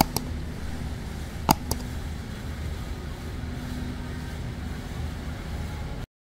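Outdoor street ambience: a steady low rumble of traffic, with a few sharp clicks, the loudest about a second and a half in. It cuts off abruptly near the end.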